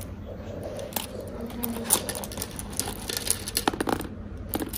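Plastic nail-polish swatch tips clicking and rattling against one another as a fan of them is handled, a few light clicks at a time over a low room hum.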